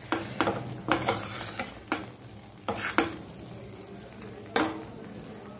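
Metal spoon scraping and knocking against a steel pan, in irregular strokes with pauses, as cooked rice is mixed into tamarind pulihora paste, over a faint steady sizzle from the pan on the stove.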